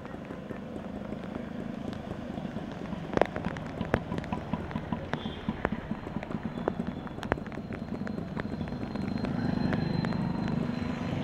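Steady wash of rain and water on a flooded street, with scattered sharp taps and drips bunched in the middle. Near the end a motorcycle engine grows louder as it rides through the water.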